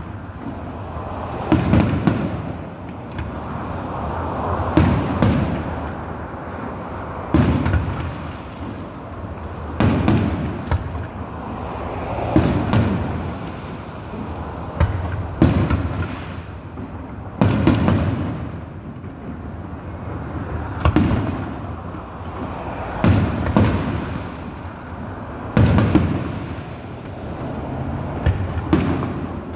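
Fireworks bursting in a steady series of booms every two seconds or so, some in quick pairs, each followed by a rolling echo.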